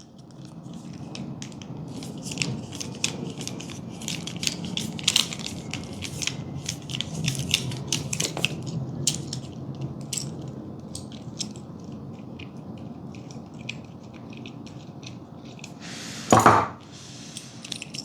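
Small screw being undone from a plastic curtain glider carrier by hand: a run of small, irregular clicks and scrapes over a steady low hum, with one louder knock near the end.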